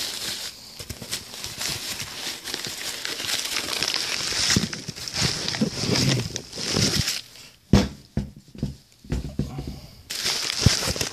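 Shredded paper packing rustling and crinkling as hands dig through a parts box. There is a sharp knock a little past two-thirds through and another near the end.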